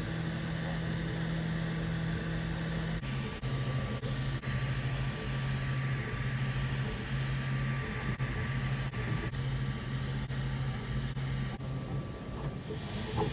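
Anycubic Kobra X 3D printer running, its stepper motors humming a steady low tone. From about three seconds in, the pitch jumps back and forth between two notes as the print moves change.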